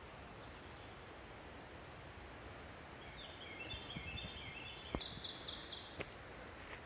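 A songbird singing faintly: a run of quick repeated high notes starting about halfway in, ending in a fast high trill, over faint outdoor background noise. Two light clicks sound near the end.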